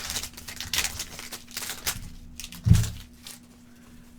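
Wrapper of a basketball trading card pack tearing and crinkling as it is opened, then a single dull thump about two and a half seconds in.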